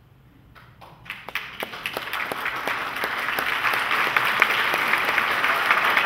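Audience applause: a few scattered claps about half a second in, swelling within a couple of seconds into full, steady clapping.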